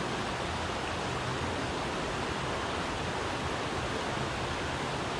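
Mountain stream water rushing steadily, an even wash of running water.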